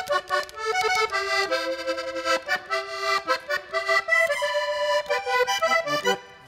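Hohner Corona III three-row button accordion playing a vallenato melody, note after note, trailing off just before the end.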